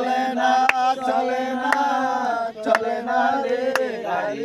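Men's voices singing a Bengali song, drawing out long notes, with a sharp hand clap about once a second keeping time.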